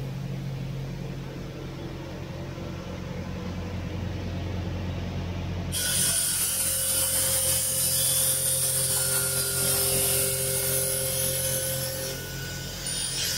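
Crystal-ball grinding machines running with a steady hum. About six seconds in, a loud, even hiss of water running from a hose joins suddenly.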